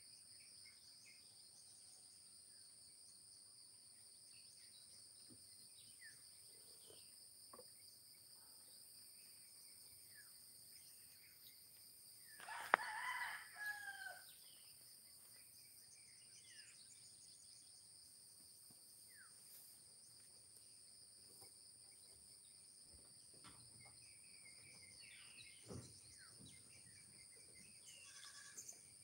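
Quiet rural morning ambience: a steady high-pitched insect drone with faint scattered bird chirps. A rooster crows once about halfway through.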